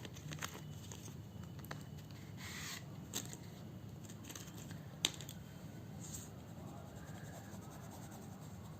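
Faint scratchy strokes of colouring on paper, with a few small clicks and taps.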